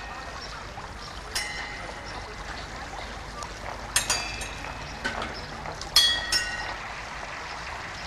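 Water pouring and splashing from the tipping watering cans of a mechanical water clock, with several sharp metallic clanks that ring briefly as the mechanism works.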